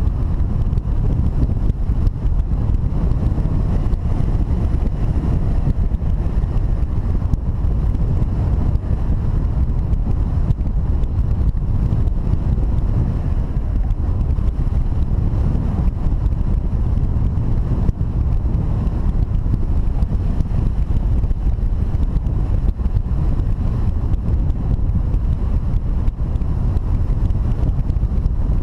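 Steady wind noise from the airflow over a hang glider in flight, buffeting the wing-mounted camera's microphone, deep and unbroken.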